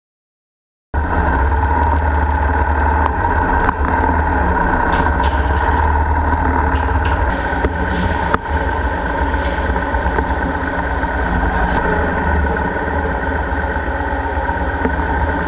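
Motorcycle engines running at low speed on a ferry's enclosed car deck, a steady low rumble that starts suddenly about a second in.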